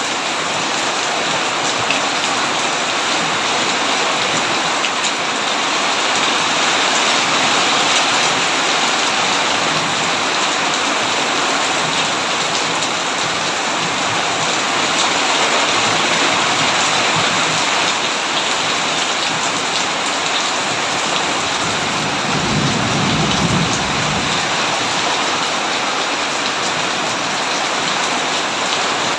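Heavy rain pouring steadily. About three quarters of the way through, a brief low rumble of distant thunder.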